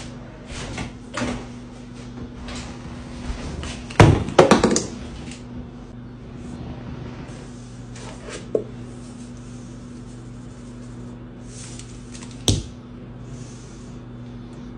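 Kitchen handling noise: a cluster of loud knocks about four seconds in as spice jars are put down on the counter, then single knocks and a few short rattling hisses as a jar is handled. A steady low hum sits underneath.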